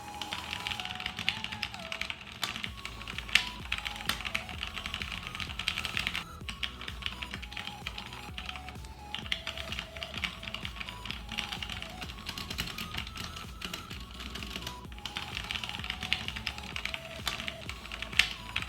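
Fast typing on a HyperX Alloy FPS Pro mechanical keyboard with Cherry MX Red linear switches: a dense, quite loud clatter of keystrokes, with short pauses about six and fifteen seconds in. Quiet background music with a simple melody plays underneath.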